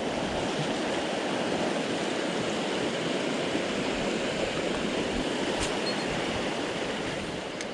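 Mountain stream rushing steadily over a shallow rocky riffle.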